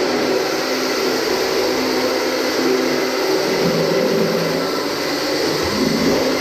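Beetleweight combat robots' electric motors whirring steadily, with the pitch shifting as the robots drive and push against each other.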